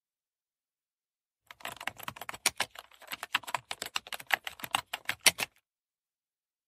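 Computer keyboard typing: a run of quick, uneven key clicks that starts about a second and a half in and stops about four seconds later.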